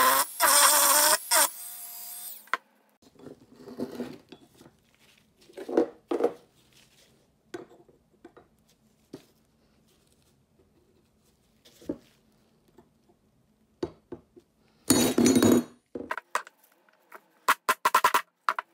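Handheld rotary tool running against the steel of a pipe wrench, then cutting out and spinning down with a fading whine about two seconds in. After that come scattered clicks and knocks of metal parts being handled, a short loud burst of noise about fifteen seconds in, and a quick run of sharp clicks near the end.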